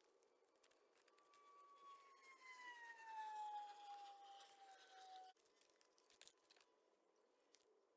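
Faint siren: a single slow falling wail that starts about a second in and cuts off suddenly about five seconds in, over near silence with a few faint clicks.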